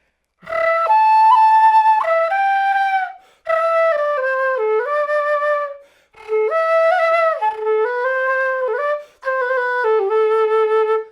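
Solo quena (Andean notched flute) playing a melody in four short phrases, each broken off by a brief breath pause, with flutter-tonguing (frulato) used as an ornament.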